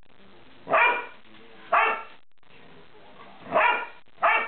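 Dogs woofing: four loud single barks, the first two about a second apart, then a pause and two more in quick succession near the end.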